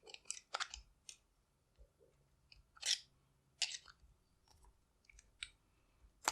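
Scattered light metallic clicks and scrapes of a skinny screwdriver worked inside a vintage American Series 600 padlock, trying to push the core out of the lock body.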